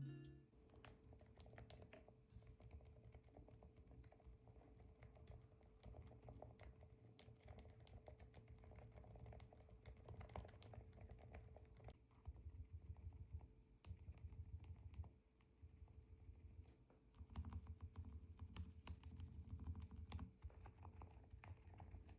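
Quiet, irregular keystroke clicks of typing on a Nuphy Air 75 V3 low-profile mechanical keyboard fitted with Gateron blush silent nano switches, over a faint steady hum.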